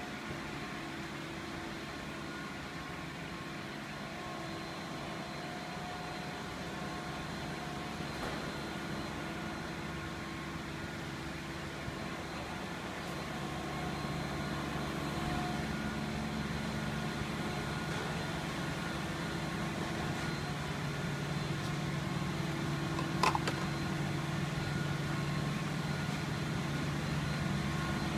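Steady mechanical hum with a few held tones, slowly growing louder, and a single sharp click late on.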